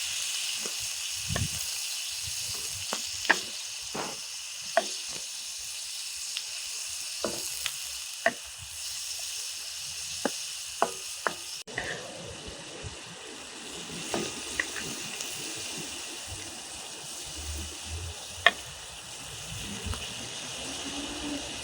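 Chopped liver and heart frying in hot fat, a steady sizzle with scattered sharp pops and crackles.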